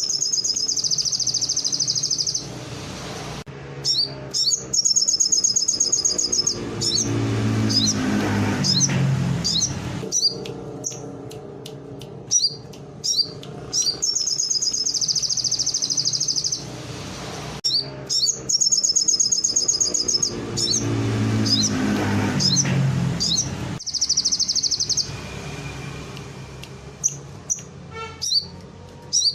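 Sogon songbird singing canary-style phrases: fast, high trills about two seconds long, repeated five times, broken up by short, sharp chirps.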